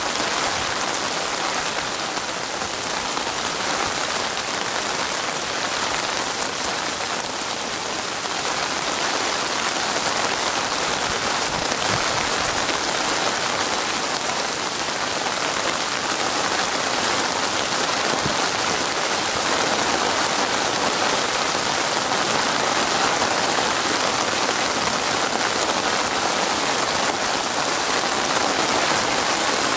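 Steady rain falling on a water surface: an even hiss of countless drops, unbroken throughout.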